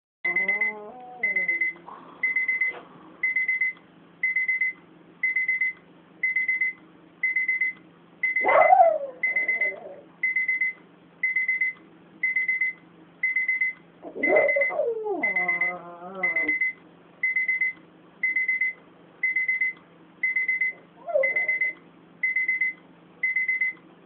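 Electronic alarm clock beeping in a steady repeating pattern, about four high beeps every three seconds. Over it a pet gives several wavering cries: a loud falling one about 8 seconds in, a long one a little past the middle, and a short one near the end.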